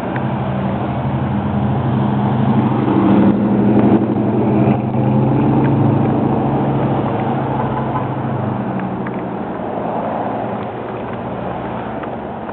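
A motor engine running with a low, steady hum that grows to its loudest about four seconds in, then slowly fades away.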